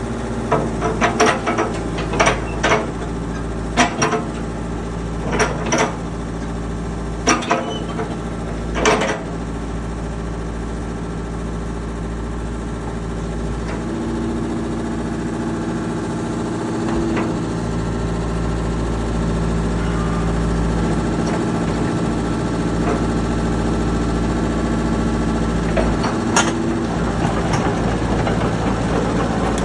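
Komatsu PC78US excavator's diesel engine running steadily, with a dozen or so sharp knocks in the first nine seconds. The hum shifts slightly in pitch a few times later on.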